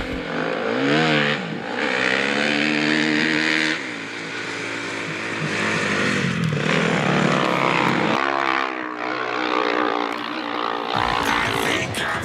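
Dirt bike engines revving, their pitch rising and falling several times.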